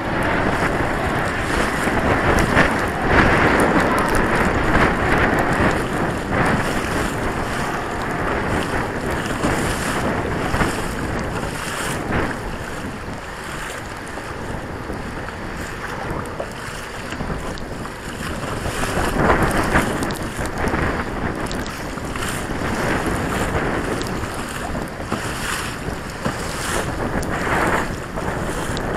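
Wind buffeting the microphone, rising and falling in gusts, over choppy water splashing against the hull of a Hobie Pro kayak as it moves through rough water.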